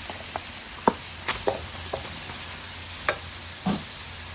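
Garlic and lemongrass sizzling in hot oil in a frying pan as ground turkey goes in, with a steady hiss and about seven sharp knocks of a utensil against the pan.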